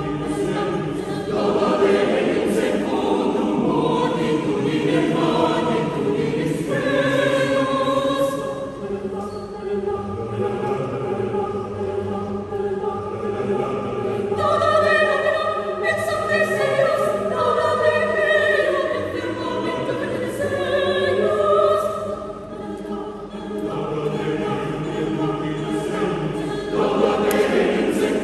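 Choir singing, several voices holding long chords together, with a brief softer passage about three-quarters of the way through.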